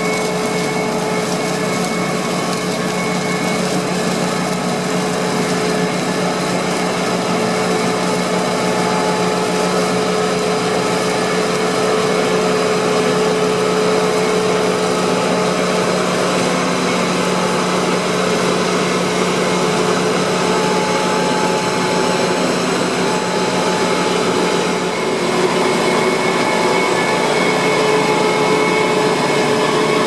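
Ploeger AR-4BX self-propelled four-row potato harvester at work, its engine and conveyors running as a steady machine drone with whining tones through it.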